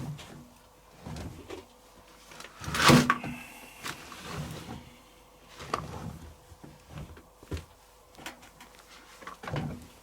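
Laundry being stuffed by hand into a washing machine drum: scattered soft thumps and rustles, with a louder knock about three seconds in.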